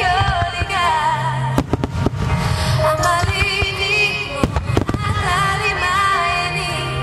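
Aerial firework shells bursting in a series of sharp booms over loud, continuous music with a wavering melody line.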